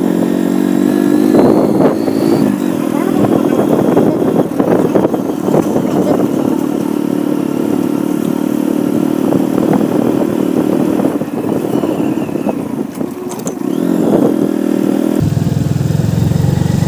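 Hero Glamour 125 motorcycle's single-cylinder engine running steadily under way, heard from on the bike, with a few knocks over it. Near the end the engine note suddenly drops lower.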